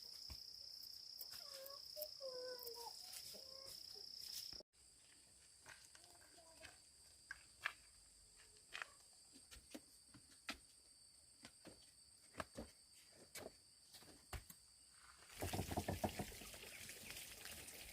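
Insects chirring in a steady high-pitched drone, faint, with a few short chirps and scattered light clicks. The drone breaks off abruptly about four and a half seconds in and carries on fainter; a louder, noisier stretch comes in a few seconds before the end.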